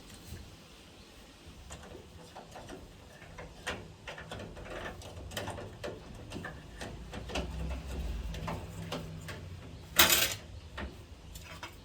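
Hard plastic clicking and knocking as the washing machine's drain-filter cover is handled, with one loud snap about ten seconds in.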